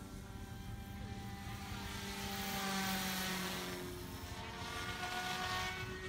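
Radio-controlled model helicopter flying aerobatics overhead: a steady whine from its rotor and motor, whose pitch slowly rises and falls as it manoeuvres. It grows louder toward the middle, then eases off.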